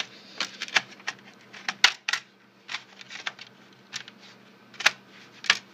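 Plastic laptop bottom cover being fitted back over the RAM bay: irregular sharp clicks and taps as it is handled and snapped into place, the loudest about two seconds in and twice near the end.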